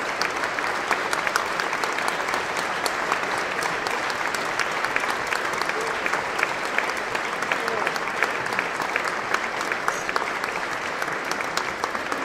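Concert audience applauding: dense, steady clapping.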